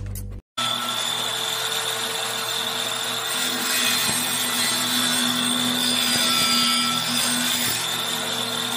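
Table saw running and cutting through a plywood board, starting about half a second in: a steady motor whine under the noise of the blade in the wood, loudest in the middle of the cut and easing off near the end.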